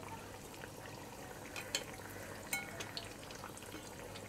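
Spinach vadas deep-frying in oil in a kadhai on a medium-to-low flame: a faint, steady sizzle with scattered crackles and a few sharper ticks, as a slotted spoon moves through the oil.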